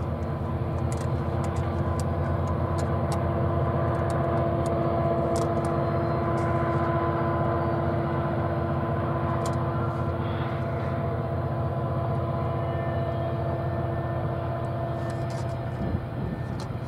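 Diesel locomotive hauling a long freight train of tank wagons at a distance: a steady deep engine drone with a few held humming tones over it, unchanging throughout.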